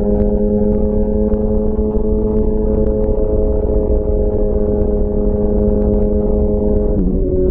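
2004 Honda CBR1000RR's inline-four running at a steady cruising speed through a Jardine titanium exhaust, with wind and road rumble underneath. Near the end the engine note dips sharply for a moment and then settles slightly lower.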